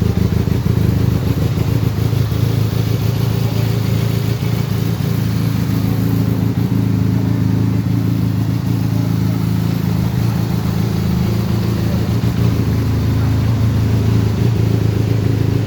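Benelli TRK502 LE motorcycle's 500 cc parallel-twin engine idling steadily, with an even pitch and no revving.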